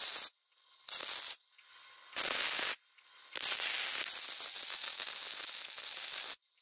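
Electric arc welding on steel, crackling and sizzling in bursts as the arc is struck and broken. Two short bursts of about half a second come about a second and two seconds in, then a steady run of about three seconds that cuts off suddenly near the end.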